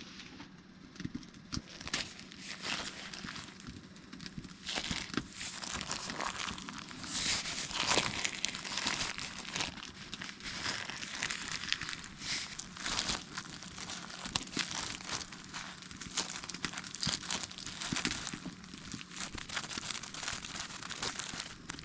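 Hands kneading pizza dough: irregular rustling and squashing with small soft knocks, louder in patches.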